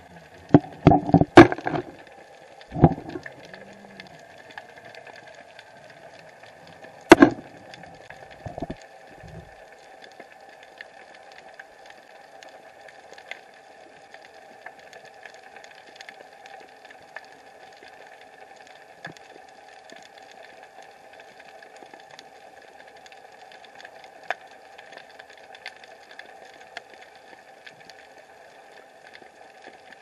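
Underwater sound picked up by an Apexcam M80 air action camera in its waterproof case: a steady faint hum and hiss. A cluster of sharp knocks comes in the first three seconds, and another loud knock about seven seconds in, as the case bumps or is handled.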